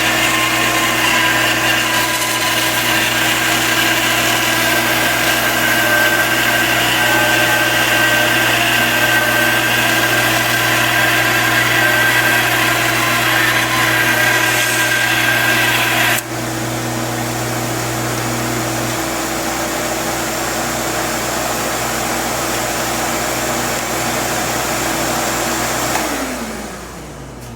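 Bandsaw resawing a board: the blade cutting through the wood over a steady motor hum. About sixteen seconds in the cutting noise stops and the saw runs free. Near the end it is switched off, and the hum falls in pitch as the motor winds down.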